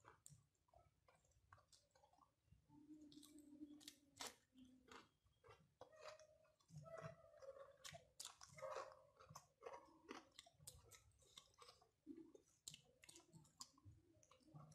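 Faint close-up sounds of a person eating rice by hand: chewing with many short mouth clicks and smacks, and fingers mixing rice on the plate.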